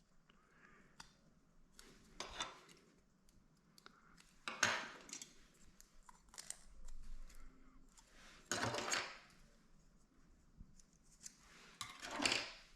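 Plastic clipper guards being handled, with a few short scrapes, rustles and light clicks as they rub and knock together.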